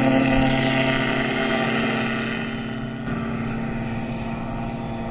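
A small engine running steadily with an even droning tone, getting slightly quieter over the first three seconds and then holding.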